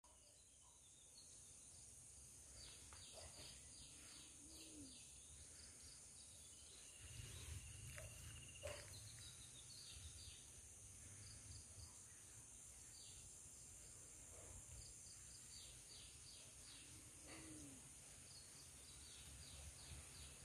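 Faint outdoor ambience: many short bird chirps over a steady high-pitched insect drone, with a low rumble underneath.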